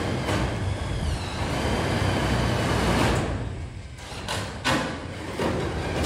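Electric drill driving a self-drilling screw through a sheet-metal roof ridge cap into the steel frame. The motor runs under load for about four seconds, with a faint rising whine, and is followed by a few sharp knocks.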